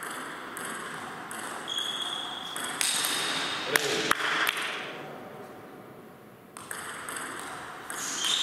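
Celluloid-plastic table tennis ball clicking off bats and the table in a rally, a handful of sharp clicks with the loudest about four seconds in, plus a few short high squeaks.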